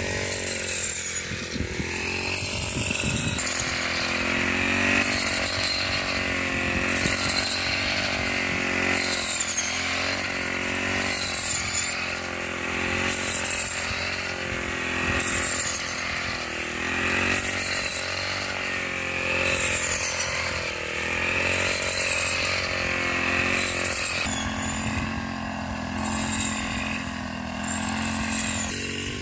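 Small engine of a hand-guided wheat harvesting machine running steadily, its note wavering slightly, with a high falling squeak repeating about every second and a half. Near the end the engine settles to a lower, steadier note.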